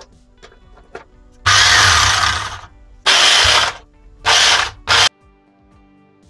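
Corded hammer drill switched on in four short runs, the first about a second long and the last very brief, as the newly replaced trigger switch is tested.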